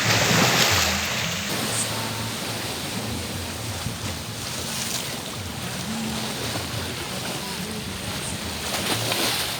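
Surf washing onto a beach: a steady wash of noise with louder swells in the first second and again near the end.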